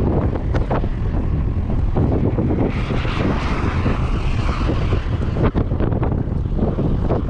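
Strong wind buffeting the microphone: a heavy, steady low rumble, with a louder hiss for a second or two about three seconds in.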